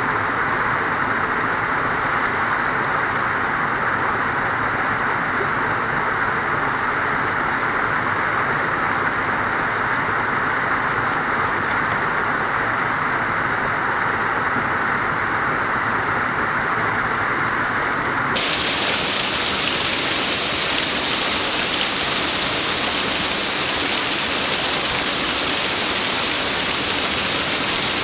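Waterfall rushing steadily, water pouring over rocks. About two-thirds of the way through the sound switches abruptly to a slightly louder, brighter rush.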